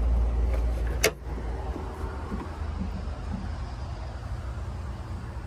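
A pickup truck's hood latch releases with one sharp click about a second in as the hood is raised, over a low steady rumble.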